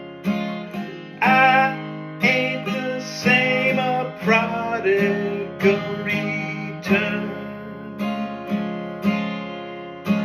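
Acoustic guitar strummed in a steady rhythm, each chord ringing and fading before the next stroke.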